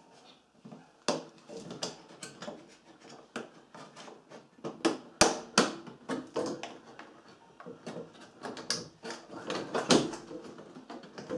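Plastic clicks, knocks and rattles as a washing machine's control board is pushed down and worked free of its plastic mounting clips, with a few louder sharp snaps about five seconds in and again near ten seconds in.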